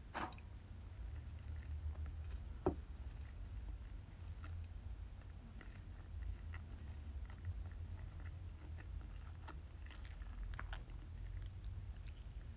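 Faint handling sounds of a thin spring roll pastry sheet being folded and rolled around a filling on a plastic cutting board: light rustles and soft taps, with one sharper click a little under three seconds in, over a low steady hum.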